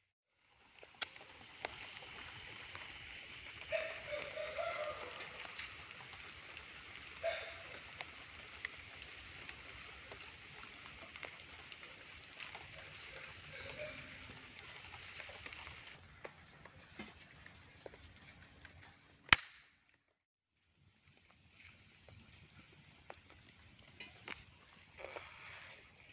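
Wood cooking fire being lit and catching, with scattered crackles and pops under a steady high-pitched drone of crickets. A single sharp crack comes near the end of the first stretch, then the sound drops out for about a second and resumes.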